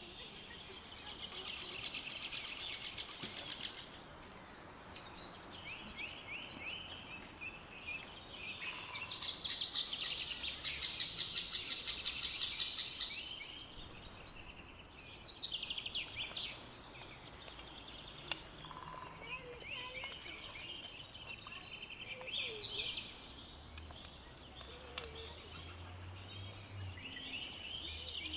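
Songbirds singing in repeated bouts of rapid, high-pitched chirping trills, each bout lasting a few seconds, with the loudest about ten seconds in.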